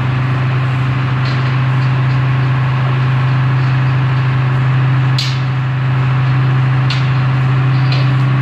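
Engine idling steadily with a constant low hum, under a few sharp metal clicks and clanks from hand work on the truck frame, the loudest about five seconds in.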